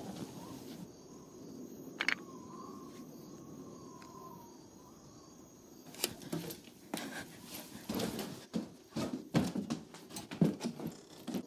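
Knocks and scrapes of wooden furniture being moved in a room. One sharp knock comes about two seconds in. From about six seconds on, a rapid, irregular run of loud bangs, bumps and scuffs follows as a wooden chair is handled.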